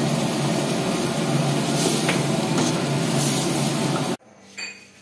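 Steady loud roar and sizzle of a pan of curry cooking over a high gas flame, cut off abruptly about four seconds in.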